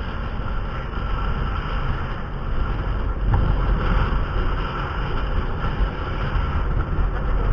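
Steady wind buffeting the microphone, mixed with the low rumble of a moving vehicle.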